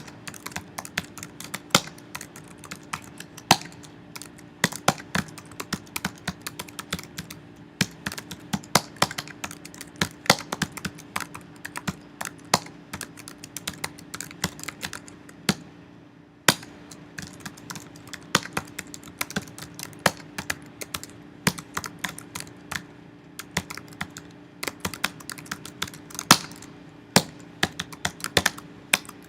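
Typing on a computer keyboard: quick, irregular keystrokes with a brief pause about halfway through, over a steady low hum.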